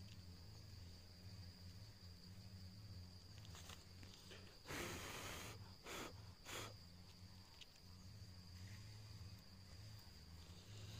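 Faint outdoor ambience: a steady high-pitched insect trill over a low hum. A short rustle comes about five seconds in, and two brief scuffs follow soon after.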